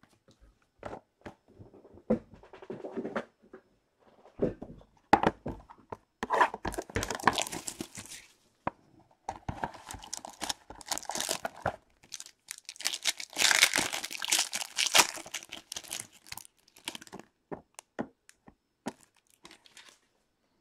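Cardboard trading-card box being opened and its packaging torn and crinkled, with scattered taps and clicks of handling. Two louder stretches of tearing and rustling come about a third of the way in and just past the middle.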